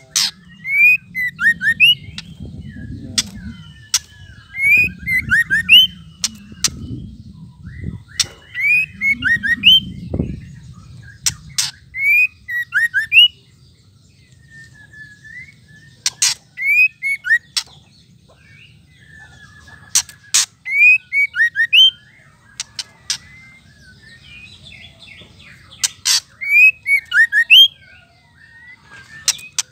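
White-rumped shama giving its rattling 'ketrek' calls: sharp clicking notes each followed by a few quick rising and falling chirps, in bursts repeated every few seconds.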